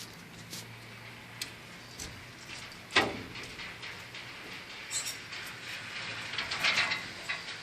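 Volkswagen Touareg driveline giving a single sharp knock about three seconds in over a low steady hum, followed by a few lighter clicks near the end. The knock comes on pulling away, and the owner places it at the driveshaft's flexible coupling.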